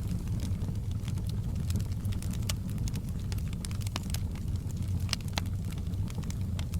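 Open log fire in a fireplace burning with a steady low rumble and scattered sharp crackles and pops, a few louder ones about two and a half, four and five seconds in.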